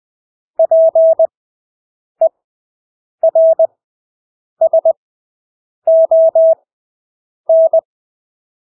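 Morse code (CW) sent as a single-pitched beep: characters keyed at 20 words per minute with long Farnsworth gaps between them, six characters in all, one of them a lone short dit.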